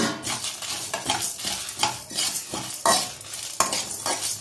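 A metal spatula stirring and scraping whole spices (peppercorns, cumin, coriander seeds and dried red chillies) around a dry metal kadai as they are dry-roasted, the seeds rattling against the pan. Repeated scraping strokes, about two a second.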